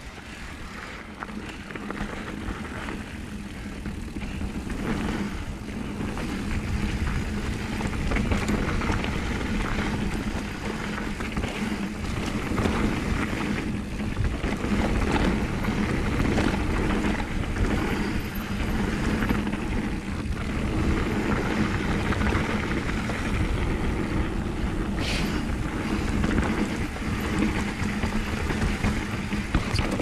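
Mountain bike descending a rocky downhill trail, heard from a rider-mounted camera: a continuous rumble of tyres over rock and dirt with frequent knocks and rattles from the bike.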